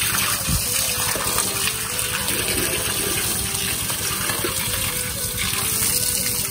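A hose nozzle spraying a steady, strong jet of pumped bore-well water that splashes into a shallow tank of water and plants.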